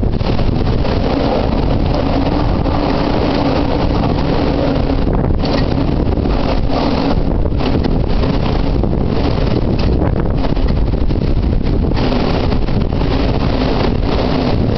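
Typhoon wind buffeting the microphone in a loud, steady roar, with a faint low moan in the first few seconds and again near the end.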